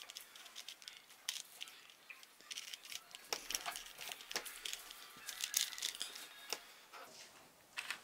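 A 4x4 Rubik's cube being turned quickly by hand: a faint, irregular run of small plastic clicks and rattles as its layers snap round.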